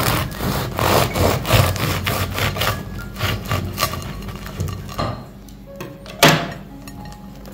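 Knife sawing through the crisp crust of a baked bread roll, crackling and crunching in quick strokes for the first four seconds, then quieter, with one sharp crack about six seconds in.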